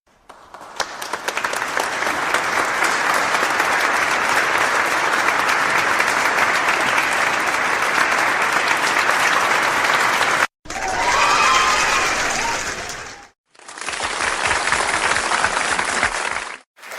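Stock applause sound effects played back to back: a crowd clapping that swells in over the first second and runs about ten seconds, then stops dead, followed by two shorter clips of clapping crowd of about three seconds each, the first with a few whistles or voices over it, each separated by a brief silence.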